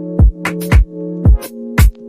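Background electronic music with a steady kick drum, about two beats a second, over held synth chords.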